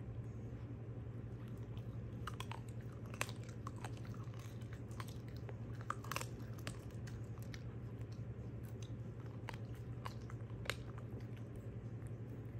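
Small dog chewing and crunching a frozen raw chicken foot, with irregular sharp cracks of bone and gristle. A steady low hum runs underneath.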